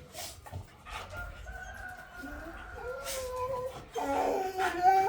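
Drawn-out, wavering animal calls, growing louder about four seconds in.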